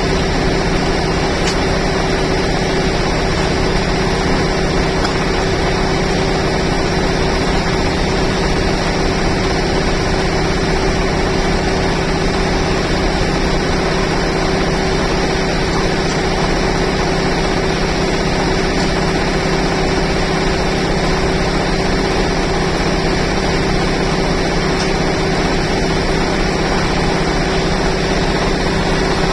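Old sawmill machinery running steadily: a constant mechanical drone with a steady hum, with no change in load.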